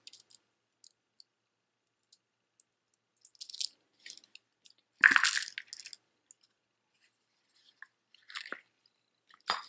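Loose jewelry beads clicking and rattling against each other as they are handled, in scattered small clicks with one louder rattle about five seconds in.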